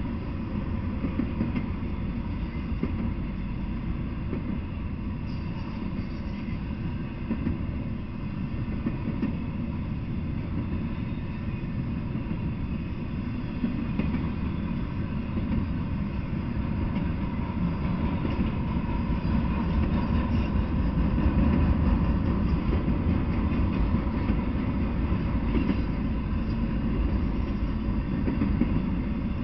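Intermodal freight train rolling past, its flatcars loaded with semi-trailers and containers: a steady low rumble of wheels on rail with rattling, growing somewhat louder after about seventeen seconds.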